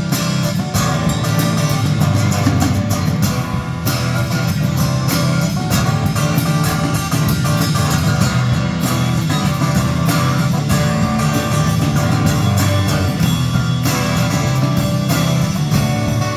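Instrumental break in a rock song: a band plays guitar over a steady low bass line and drums, with no singing.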